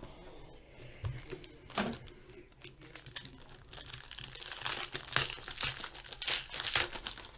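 Foil wrapper of an Upper Deck Black Diamond hockey card pack crinkling as it is handled and pulled open, with louder, denser crackling in the second half.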